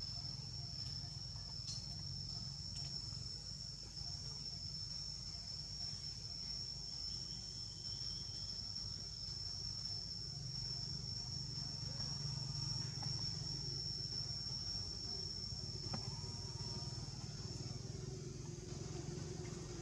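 Insect buzz: a steady, high-pitched drone held on one pitch, which cuts off about eighteen seconds in, over a faint low rumble.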